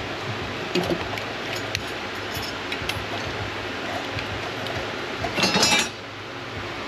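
Light metallic clinks of tools and parts being handled over a steady fan-like hiss. About five and a half seconds in comes a louder, brief pitched sound, perhaps half a second long.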